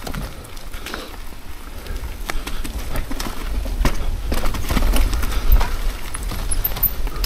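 Mountain bike rattling down a rough dirt singletrack: irregular knocks and clatter from the tyres and bike over rocks and roots. Wind on the microphone adds a low rumble that grows louder from about halfway through.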